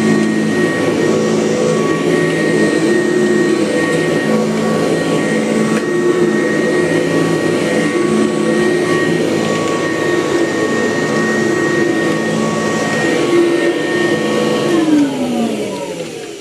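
Kirby upright vacuum cleaner running steadily with a constant motor whine, then switched off near the end, its pitch falling as the motor winds down.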